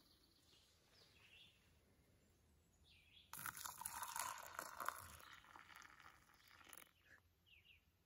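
Water poured from a backpacking-stove pot into a plastic cup of ground coffee, a splashing pour of about three and a half seconds that starts about three seconds in. A few faint bird chirps are heard around it.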